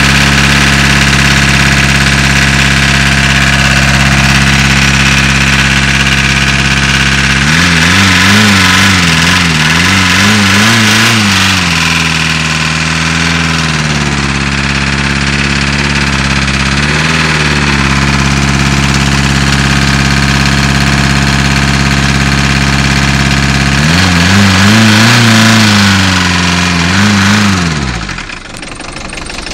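VW Caddy diesel engine running, revved up and down several times before it drops back quieter near the end. The owner says it is running on only three cylinders, maybe from a valve fault.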